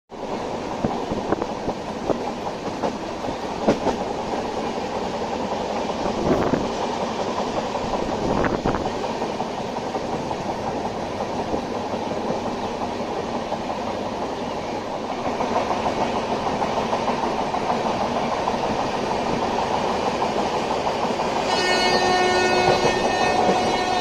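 Train running at speed, heard from aboard: a steady rushing rumble of wheels on rails with a few sharp knocks in the first several seconds. Near the end a horn sounds, a steady chord-like tone held for a couple of seconds.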